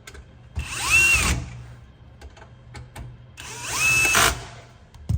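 Powered screwdriver driving the two lid retaining screws of a crypto-mining rig: two runs of about a second each, each winding up in pitch, holding, then stopping, with small handling clicks between them.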